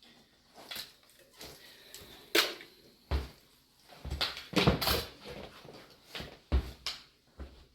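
Computer hardware being handled: irregular clicks, knocks and scuffing, with a few heavier thumps of parts being moved and set down.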